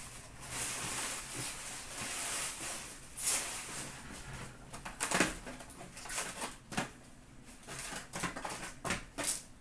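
Hands handling cardboard trading-card boxes and packs: rustling, with a few short light knocks scattered through.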